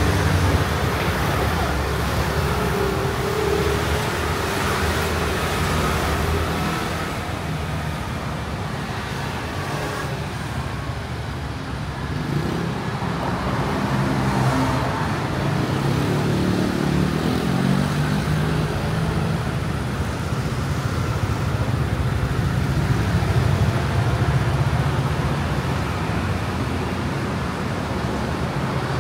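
City street traffic, mostly scooter engines passing on the road, a steady rumble with one engine's pitch rising and falling about halfway through.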